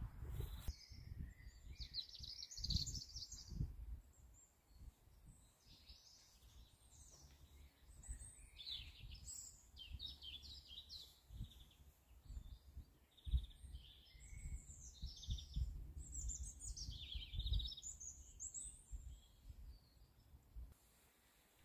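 Small songbirds singing repeated short, quickly trilled and twittering phrases, over low bumps and rumble at the microphone.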